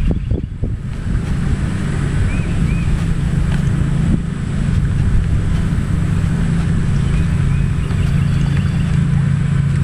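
A small boat motor running with a steady low hum, which sets in about a second in. Wind rumbles on the microphone at the start.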